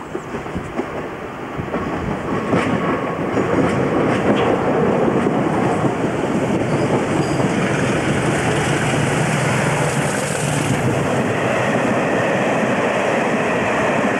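A British Rail Class 50 diesel locomotive, with its English Electric 16-cylinder engine, hauling coaches as it approaches and passes close by. The sound grows louder over the first few seconds, with a few sharp clicks of wheels over the points, then stays loud and steady as the coaches roll past.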